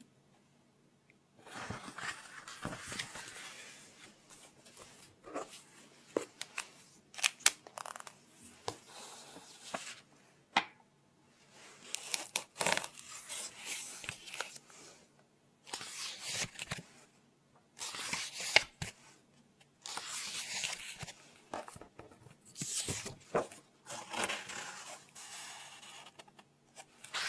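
Pen scratching on paper in a run of short, rough strokes with brief pauses and a few sharp clicks, as a name is written into a library record.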